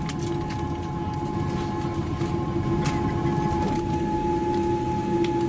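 Cabin noise inside a Boeing 787-8 Dreamliner taxiing after landing: a steady low rumble with several steady whining tones over it, one of which stops about two-thirds of the way through, and a few faint clicks.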